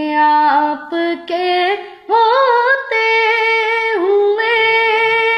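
A boy singing a naat unaccompanied in a high child's voice, drawing out the words "aapke" over long held notes. A short break for breath comes about two seconds in, then the pitch rises to a high held note.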